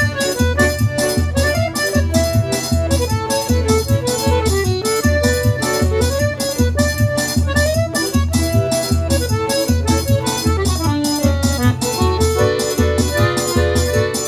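Instrumental forró intro led by an accordion playing the melody over a steady low drum beat and a regular high tick, about three to four a second. This is the zabumba-and-triangle rhythm of baião, with no singing.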